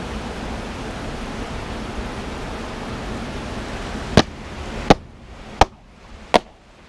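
A steady rushing hiss, then about four seconds in a pair of wet sneakers is knocked against concrete four times, sharp knocks about three-quarters of a second apart, shaking out river water.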